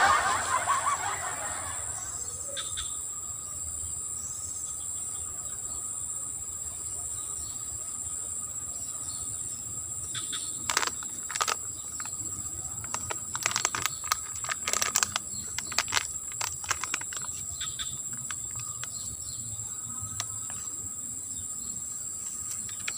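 Insects chirring steadily at a high pitch in grassy surroundings, with a fainter steady tone beneath. A noisy rustle fades in the first two seconds, and scattered short clicks and rustles come from about ten to seventeen seconds in.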